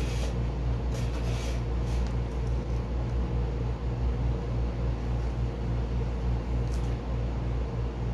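Steady low mechanical hum, with a few brief faint rasps of masking tape being peeled off a painted helmet.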